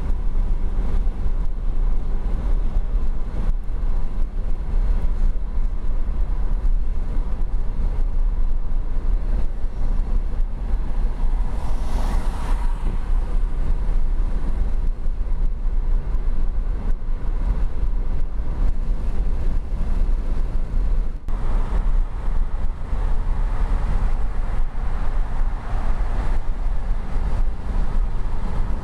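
Steady road and wind noise inside a car cabin at highway speed, a continuous low rumble. About twelve seconds in, a louder rushing swell rises and fades.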